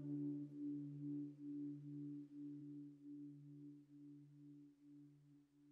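Closing ambient music fading out: a low sustained tone with a gentle pulse, about twice a second, dying away.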